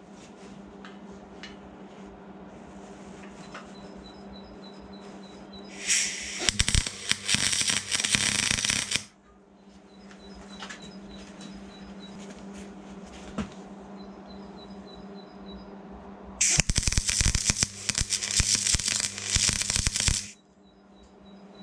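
MIG welder laying two short welds on steel: a loud crackling, spitting arc for about three seconds starting about six seconds in, and again for nearly four seconds from about sixteen seconds in. A steady hum fills the pauses between welds.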